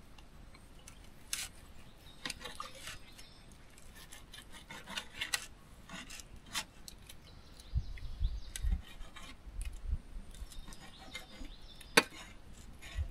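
Metal cutlery scraping and clicking against a plate while a steak is cut and eaten, in short irregular strokes. There are a few dull low thumps around two-thirds of the way through and one sharp click near the end.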